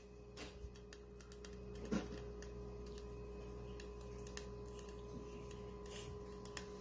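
Steady low electrical hum with faint scattered clicks and one soft knock about two seconds in.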